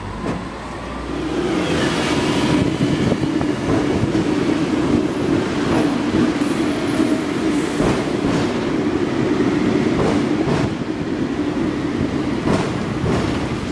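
Hong Kong double-decker electric tram running on its rails, heard from on board: a steady rumble of wheels and car body that builds up about a second in. Scattered knocks and rattles come as the tram jolts over the track.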